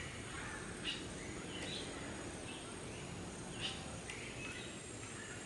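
Tropical jungle ambience: scattered short bird chirps over a steady background hiss of the forest.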